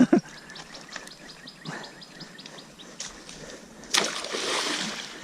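A bird gives a quick run of short high chirps, then about four seconds in a sudden splash of water, with a rush of water lasting about a second.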